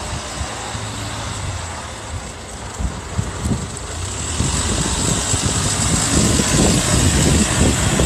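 Road traffic passing close by, with a steady rush of vehicle noise that grows louder about halfway through.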